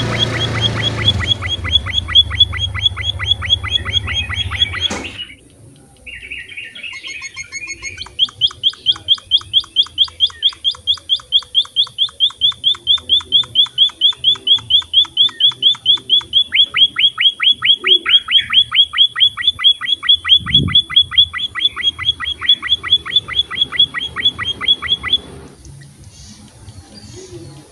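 Emprit (munia-type finch) calling in a fast, even series of short high chirps, about four a second. There is a brief break about five seconds in; the series then resumes and stops shortly before the end.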